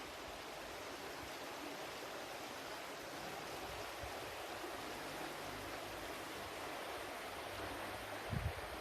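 Flowing water, a steady, even rush, with a brief low thud near the end.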